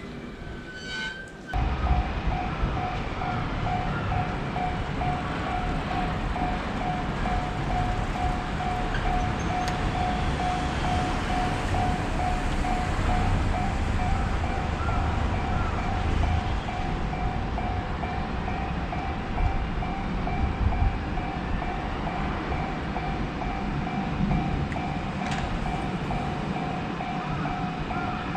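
Japanese railroad crossing warning bell ringing steadily over the low rumble of a passing train, starting suddenly about a second and a half in.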